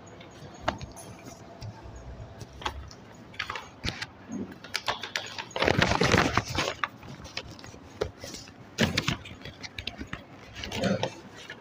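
Handling and movement noise: scattered clicks, knocks and rustles, with a louder rustle lasting about a second around six seconds in.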